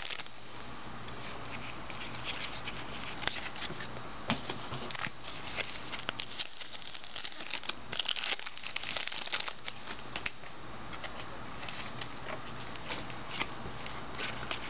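Trading-card pack wrappers crinkling and tearing as packs are opened, with cards handled and shuffled through: a run of crackles and short clicks, busiest around the middle.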